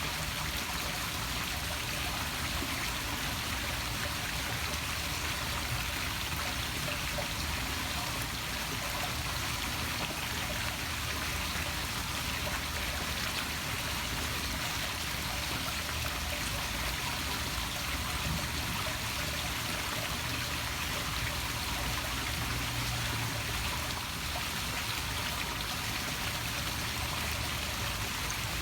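Poolside waterfall splashing steadily into a swimming pool.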